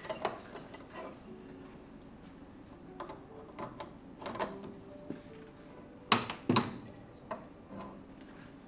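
Metal clicks and knocks of a spanner and then a torque wrench tightening a threaded part on a Grundfos SQF submersible pump motor clamped in a vice. The loudest sounds are two sharp clicks about six seconds in, as the torque wrench is pulled to its 70 Nm setting.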